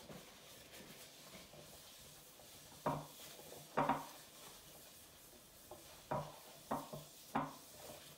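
A paper towel rubbed around the inside of a nonstick baking pan, greasing it, with five short light knocks from the pan at intervals.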